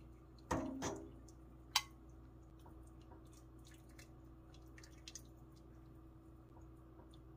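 A metal ladle knocks twice against a stainless steel soup pot, ringing briefly, followed by a sharp clink. Then come faint drips and small splashes of soup being ladled into a bowl, over a steady low hum.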